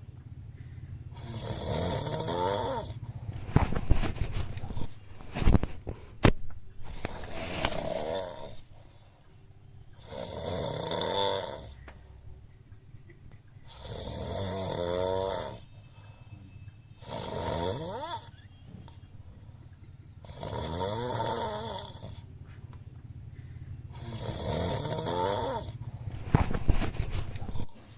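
A sleeping person snoring, one long snore every three to four seconds with a pitch that sweeps through each one. A few sharp clicks fall between the snores, mostly in the first third.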